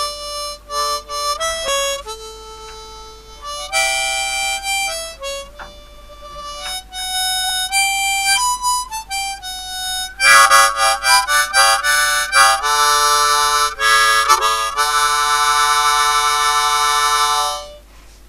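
Solo harmonica tune: a melody of short single notes, then louder chords from about ten seconds in, ending on a long held chord that stops shortly before the end.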